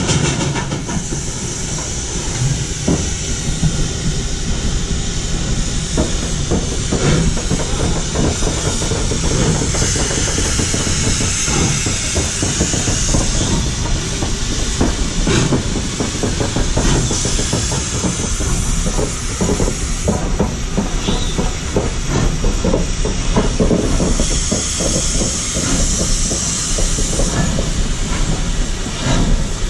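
Texas State Railroad No. 30 steam locomotive working slowly under load, with a rapid, irregular run of exhaust chuffs and knocks over a steady rumble, and bursts of hissing steam, loudest a third of the way in and again near the end.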